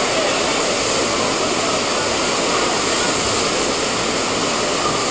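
Steady rush of whitewater rapids: an even noise of fast-moving water with no let-up.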